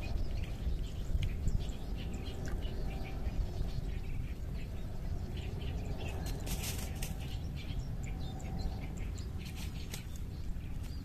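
Birds chirping in short, scattered calls over a steady low rumble of wind on the microphone, with a brief flurry of clicks and rustling about six seconds in.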